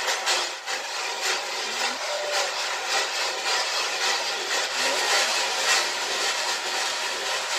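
Dry maize kernels being stirred and scraped in a long-handled pan over a wood fire as they roast. A continuous rattling scrape in repeated strokes, about two a second.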